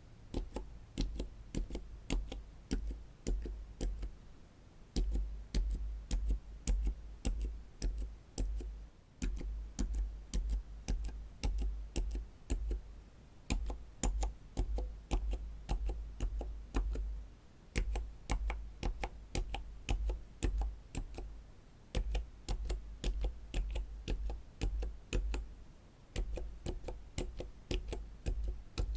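Silent mechanical keyboard switches being pressed one after another, giving short runs of about six muffled clicks each with a brief pause between runs.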